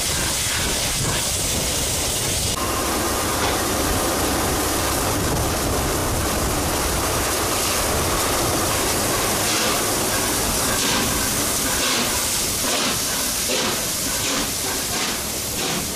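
Peppercorn A1 Pacific steam locomotive 60163 Tornado standing with steam hissing steadily and loudly. The hiss becomes uneven and pulsing near the end.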